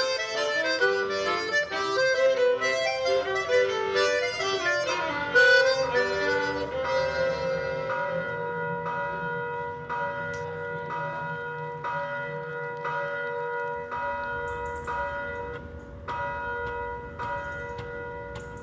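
Stage music for a dance performance: a lively, busy instrumental tune that, about seven seconds in, gives way to a held chord with bell-like notes struck at a slow, even pace, slowly fading.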